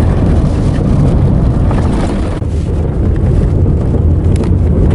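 Car driving on a rough dirt road, heard from inside the cabin: a loud, steady low rumble of tyres and suspension with a few brief knocks and rattles.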